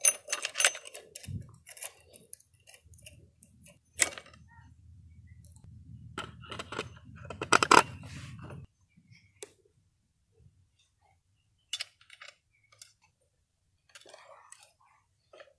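Clicks and light metallic clinks from handling a Ryobi chainsaw's chain, bar and plastic sprocket cover during reassembly: a cluster near the start, a sharper knock about four seconds in, and a run of rattling clicks between about six and eight seconds, then only scattered faint clicks.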